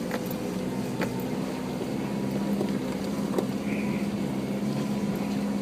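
Four-wheel-drive vehicle engine running steadily while driving, with scattered sharp clicks and knocks over it.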